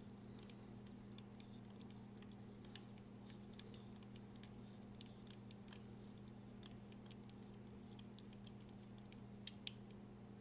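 Near silence: faint, scattered small clicks of a driver and small metal knife parts being handled while a folding knife's T20 pivot screw is worked loose, over a low steady hum. Two slightly sharper clicks come near the end.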